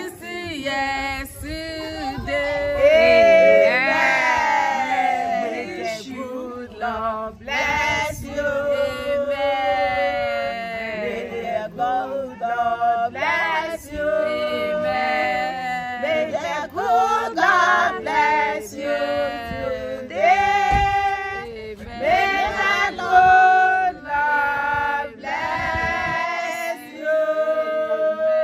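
Several voices singing a song together, with a long held note near the end.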